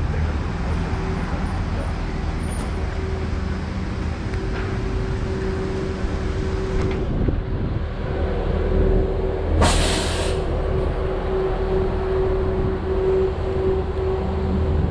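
Articulated city bus idling with a steady low engine hum and a held whining tone, then a sharp air-brake hiss about two-thirds of the way through.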